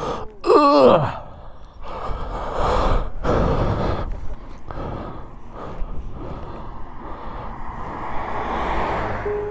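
A person's long falling sigh, loud, about half a second in, then rustling and knocking noise over wind on the helmet microphone. A car drives past near the end.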